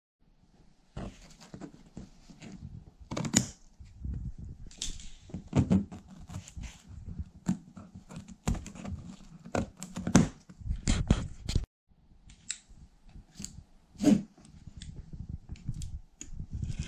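A large cardboard shipping box being cut open by hand: the plastic packing strap snipped with cutters and the cardboard slit with a utility knife. Irregular clicks, knocks and scraping with bursts of cardboard rustling.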